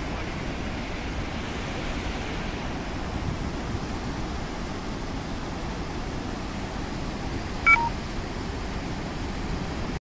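Steady rushing roar of a large waterfall, with water pouring down several broad falls over rock. About three-quarters of the way through, a short electronic beep of three quick notes falling in pitch sounds over it.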